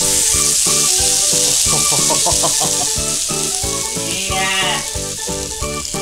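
Sirloin steak sizzling loudly as it is laid on a very hot iron sizzle platter. The sizzle starts sharply and eases off slightly towards the end.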